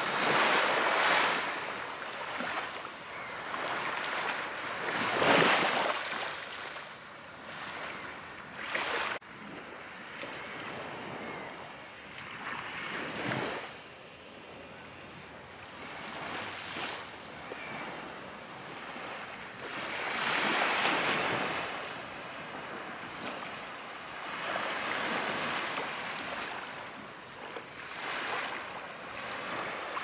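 Small waves washing onto a sand beach, swelling and fading in surges a few seconds apart, with wind blowing.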